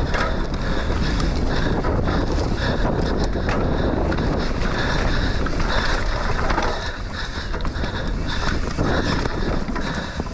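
Enduro mountain bike descending a forest trail at race speed: wind rushing over the onboard microphone, tyres rumbling over dirt and roots, and the chain and frame rattling. It turns a little quieter about seven seconds in.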